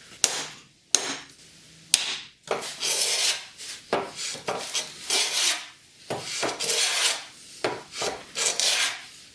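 Three sharp knocks in the first two seconds, then a hand plane shaving the edge of a plywood panel in a run of rasping strokes, roughly one a second.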